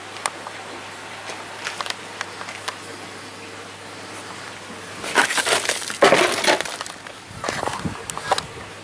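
Crunching and crackling of scrap debris being disturbed close to the microphone, loudest for about two seconds starting some five seconds in, with scattered sharp clicks before and after.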